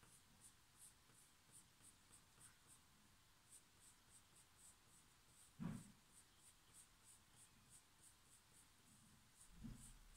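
Faint graphite pencil scratching on paper in short, repeated strokes, about three a second. A single thump comes about halfway through.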